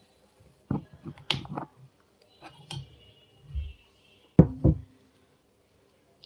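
Metal spoon and the nonstick inner pot of a mini electric cooker being handled: a series of knocks and clinks, the loudest two coming close together about four and a half seconds in, with a short ringing tone.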